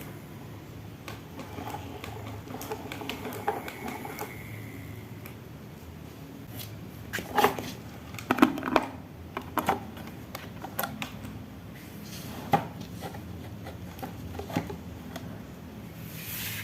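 Marbles rolling and clacking down a wooden ramp tower, with a burst of louder clacks around the middle and a few single knocks later on.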